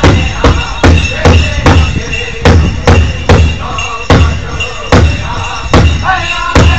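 Powwow drum group playing an intertribal song: singers striking one large drum in unison on a steady beat, a little over two beats a second, and singing over it.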